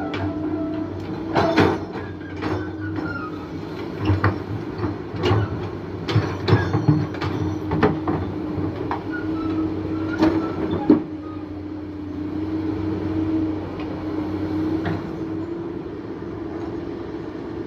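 Hydraulic excavator digging: its diesel engine runs steadily under a held whine, with a string of sharp metallic clanks and knocks through the first eleven seconds or so, after which only the steady engine and whine remain.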